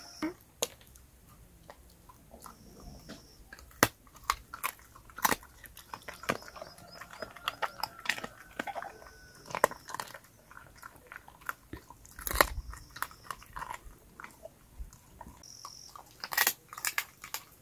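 A dog chewing and crunching food scraps off the ground: an irregular run of sharp cracks and crunches.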